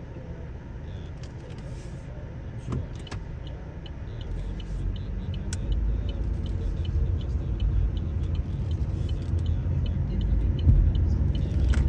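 Car driving on a road: a low engine and road rumble that grows louder about four seconds in, with a light, regular ticking over it and a few sharp clicks early on.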